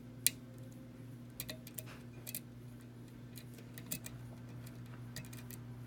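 Lock pick and tension bar working the pins of a pin-tumbler challenge lock: scattered small metallic clicks and ticks, the sharpest about a quarter second in, over a steady low hum. The picker judges a pin to be overset.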